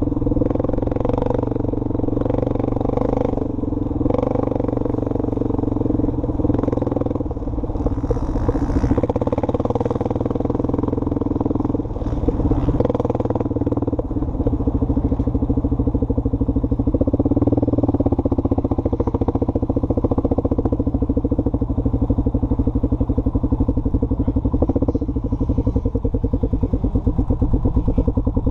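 ATV engine running as the quad is ridden, its pitch shifting with the throttle. In the second half it settles into a steady, low, even putter.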